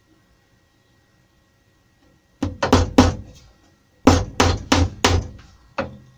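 Steel claw hammer driving panel pins firmly into an MDF board. Three sharp blows come about two and a half seconds in, then a run of four blows about a second later, then one lighter tap near the end.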